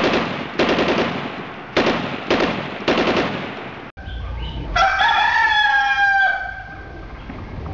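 Five bursts of rapid automatic gunfire, each tailing off. After a sudden break comes one long rooster crow, rising and then falling, about two-thirds of the way through.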